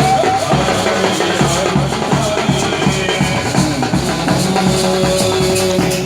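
Indian band music in the Gujarati style: a steady, evenly repeating drum beat under a sustained melody line.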